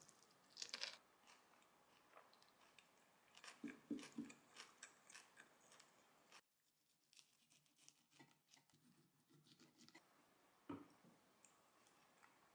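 Faint crunching and chewing of a carrot rapée sandwich, with scattered crisp crackles in the first half. After a sudden drop in the background about six seconds in, fainter light clicks follow, and a single sharp knock comes near the end.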